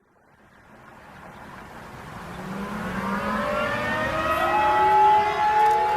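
Several civil defense sirens winding up, fading in from silence and rising in pitch together over a low hum. About four and a half seconds in, one reaches its top and holds a steady high tone.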